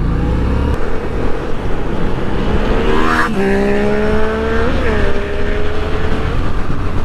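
Motorcycle engine pulling away, revving up about three seconds in, a quick upshift, then holding a steady note, under a constant rush of wind on the microphone.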